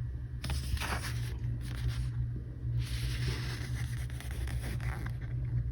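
Intermittent rustling and scraping as the diamond painting kit's packaging and contents are handled, over a steady low background hum.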